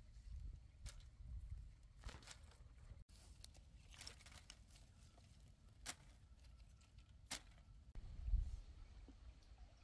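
Faint, scattered snapping and tearing sounds a second or two apart, with a low rumble of handling noise that swells briefly near the end.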